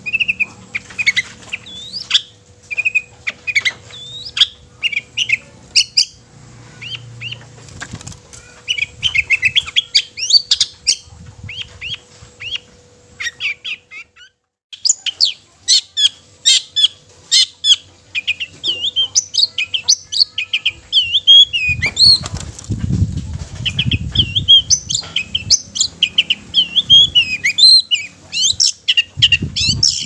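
Caged long-tailed shrike (cendet) singing a fast, varied chattering song of short high notes and trills, breaking off briefly about halfway through. Low thumps come in under the song in the second half.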